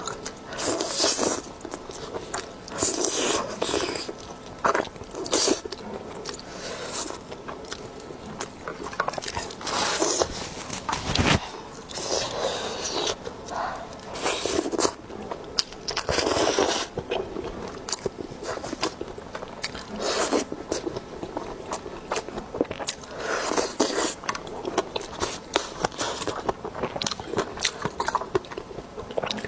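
A person eating close to the microphone: repeated bites and crunchy chewing of food, with scraping sounds, coming in irregular bursts.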